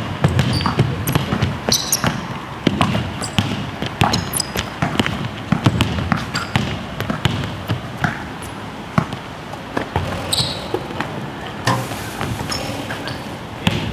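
Basketballs being dribbled on court surfaces: a run of irregular bouncing thumps and sharper knocks, with a few short high squeaks.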